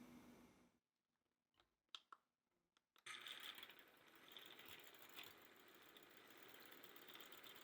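Electric hand mixer running, then switched off under a second in. A few light clicks and taps follow, then the mixer starts again about three seconds in and runs steadily, as for beating a no-bake cheesecake mixture or cream.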